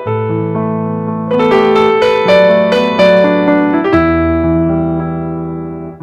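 Background piano music: a gentle melody of struck notes over sustained bass chords.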